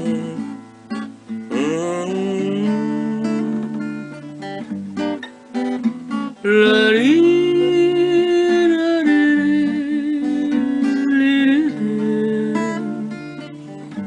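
Brazilian song played on acoustic guitar, with a lead melody that slides up into long held notes over the plucked accompaniment.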